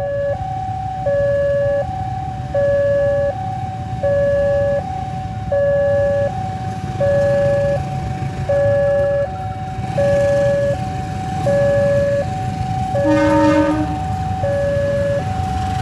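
Railway level-crossing warning alarm ringing, two electronic tones alternating about every three-quarters of a second. About 13 seconds in, the approaching diesel locomotive gives one short horn blast.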